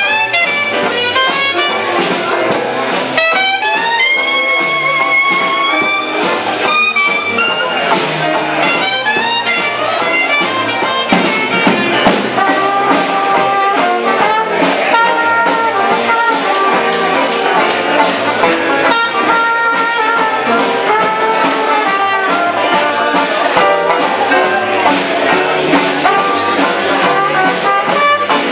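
Traditional New Orleans jazz band playing live, with a trumpet carrying the lead over banjo and the rest of the band.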